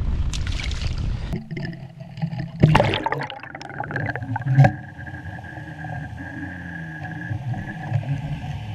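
Wind buffeting the microphone, which gives way suddenly about a second and a half in to the muffled sound of an underwater camera: a steady hum with water gurgling and two sharp knocks.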